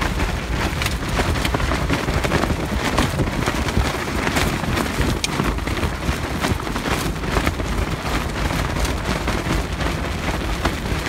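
Loose tarp flapping and snapping in the wind over an open-top Jeep on the move, with rain pattering on it in many irregular sharp taps, over a steady low rumble of wind and road noise.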